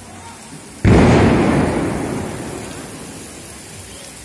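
A Diwali firecracker goes off about a second in with one sudden loud boom. The boom rumbles and fades slowly over the next three seconds.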